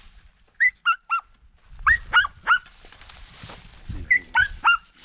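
Podenco hunting dogs yelping in short, high-pitched cries, three quick groups of three, while working a rabbit hidden in a palmetto clump.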